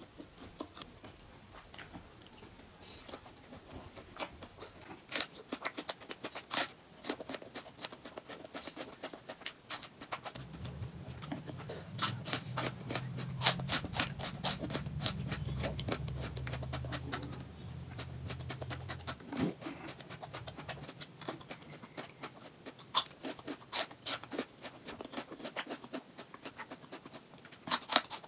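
Close-up wet chewing and lip-smacking of oily mutton curry and rice eaten by hand, with many sharp mouth clicks. A low hum joins from about ten seconds in until about two-thirds of the way through.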